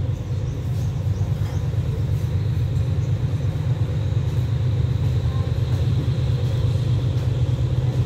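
GEK-class diesel-electric locomotive idling with the train at a standstill: a steady low engine rumble that holds even throughout.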